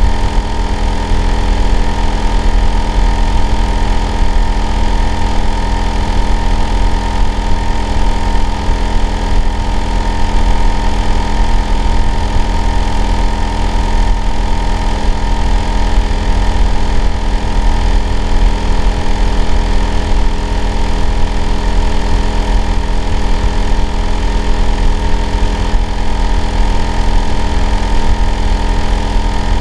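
Hitachi air-conditioner outdoor unit running steadily in winter heating season: a deep hum with several steady tones on top, one of them a higher whine, unchanged throughout.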